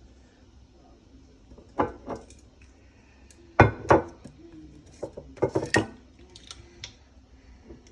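Dishes and utensils knocking together as they are handled: short sharp clacks in small clusters, the loudest pair about three and a half seconds in.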